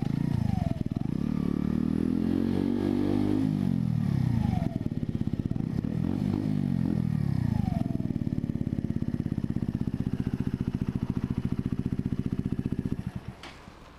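Mutt Hilts 125's single-cylinder four-stroke engine running at low speed, with the revs rising and falling a few times. It then idles with an even pulse and is switched off near the end.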